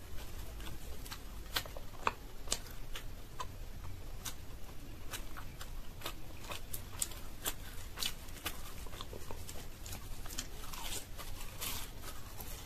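Close-miked eating sounds: a person chewing and tearing fried green-pea kachori with spiced potato, a steady run of small sharp mouth clicks, with a longer crackly stretch near the end as she takes a bite.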